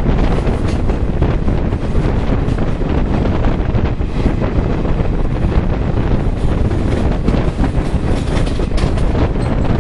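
Goa Express passenger train running on the track: a steady rumble of wheels and coach, with heavy wind buffeting the microphone.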